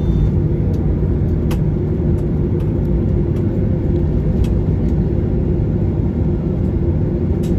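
Steady low rumble inside the cabin of a Boeing 737-800 taxiing, its CFM56-7B engines at idle and its wheels rolling on the taxiway, with a few faint ticks from the cabin.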